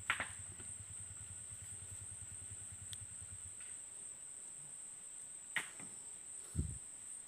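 Steady high-pitched insect buzz over the low, even pulse of a distant idling diesel engine, which fades out about three and a half seconds in. A few sharp clicks and a low thump near the end.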